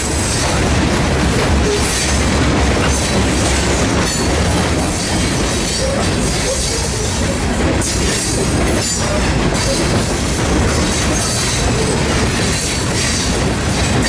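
Freight train of open-top hopper rock cars rolling past at track side: a steady loud rumble and clatter of steel wheels on the rails, with a thin high wheel squeal coming and going.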